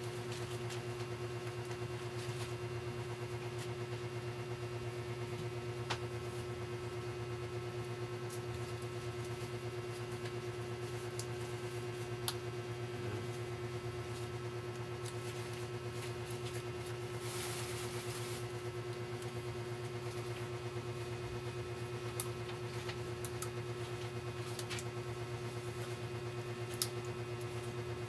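Steady low hum with a steady higher tone over it, broken by a few light clicks and a short hiss about seventeen seconds in.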